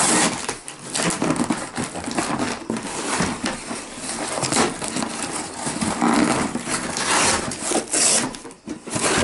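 Cardboard shipping box being handled and torn open by hand: an irregular run of scraping, crinkling and tearing cardboard.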